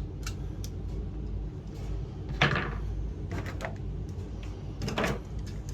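Light clicks and knocks from a small RC toy excavator being handled and turned over, the two loudest knocks about two and a half and five seconds in, over a steady low hum.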